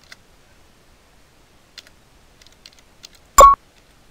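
Computer keyboard being typed on: scattered soft key clicks, a few at a time. About three and a half seconds in comes one much louder short knock.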